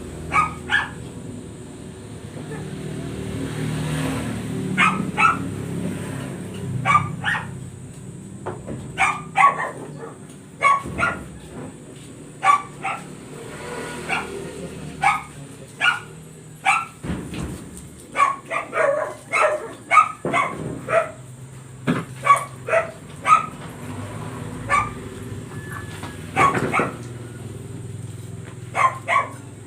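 Dog barking over and over, single barks and quick runs of two or three, with a low steady hum underneath.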